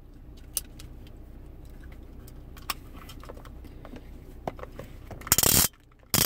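Spider wrap security tag handled: scattered light plastic clicks, then two short, loud rasps near the end as its cables are pulled and worked through the lock.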